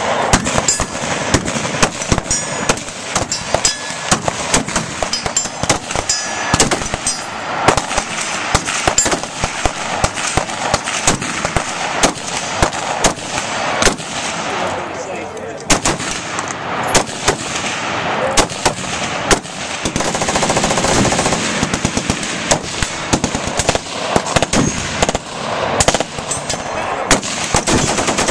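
Near-continuous gunfire from many guns at once on a firing line: overlapping single rifle shots and rapid bursts of automatic fire, with hardly a pause.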